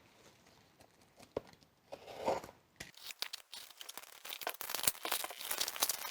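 Packaging being torn open and crinkled by hand: a few faint clicks and rustles, then from about three seconds in a busy, growing run of tearing and crinkling.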